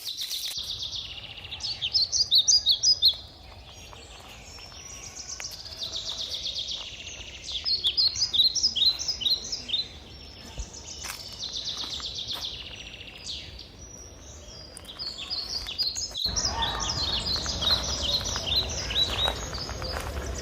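A forest songbird singing the same phrase over and over, about every five to six seconds: a soft high lead-in followed by a quick run of sharp, falling notes. Near the end a steady low background noise grows louder under the song.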